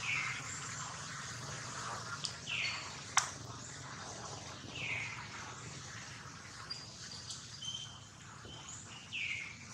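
Birds chirping: a falling call repeated four times, a few seconds apart, with short thin whistles between. There is a sharp click about three seconds in.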